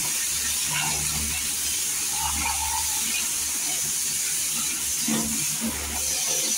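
Steady hiss of a water spray, with a low motor hum underneath, as from a pressure washer washing down a motorcycle.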